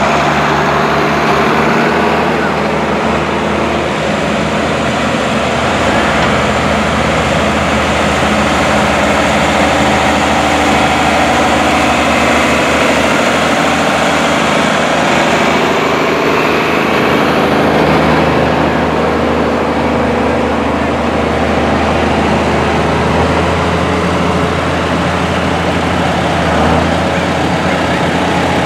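Farm tractor engines running steadily as a line of tractors drives slowly past, among them a John Deere 4520's turbocharged six-cylinder diesel passing close midway through.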